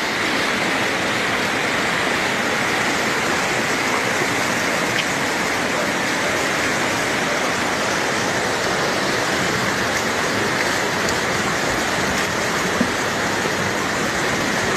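Muddy floodwater rushing down a village road in a steady torrent. It is a small stream, swollen by days of continuous rain, that was blocked at a bridge and now runs along the road.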